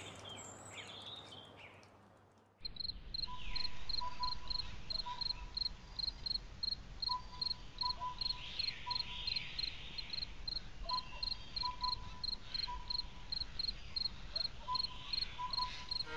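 Night ambience of crickets chirping in an even pulse, about three chirps a second, with a lower repeated call coming back every four seconds or so. It cuts in suddenly about two and a half seconds in, after the earlier sound fades to near quiet.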